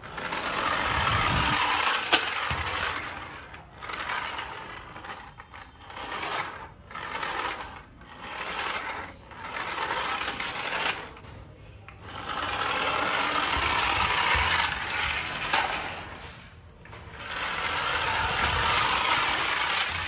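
Toy remote-control car's small electric motor and plastic gears whirring as its wheels roll on concrete. It comes in spurts: long runs at the start, in the middle and near the end, with several short bursts in between and a sharp click about two seconds in.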